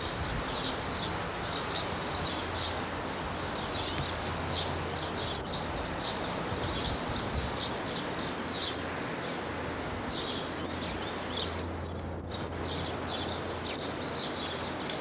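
Outdoor ambience: a steady noisy hiss with short high chirps repeating a few times a second, over a low hum.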